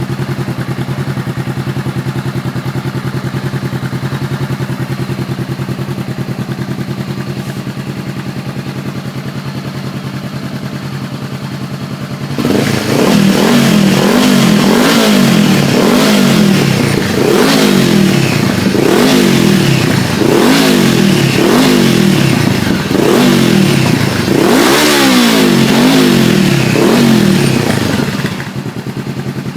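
2013 Honda CBR500R's parallel-twin engine through a Two Brothers aftermarket exhaust, idling steadily, then revved in repeated throttle blips about one every second or two, rising and falling in pitch, before dropping back to idle near the end.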